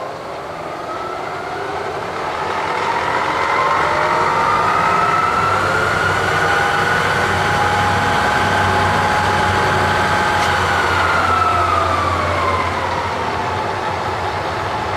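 Bridgeport milling machine head run in low range: the spindle drive winds up to speed with a rising whine, runs steadily, then is switched off about ten seconds in and spins down, the whine falling away.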